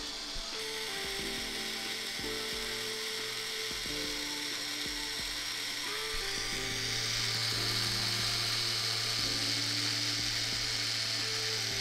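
Pen-style tattoo machine buzzing steadily as it needles ink into the skin of a forearm, getting louder about six and a half seconds in. Background music with a simple melody plays along.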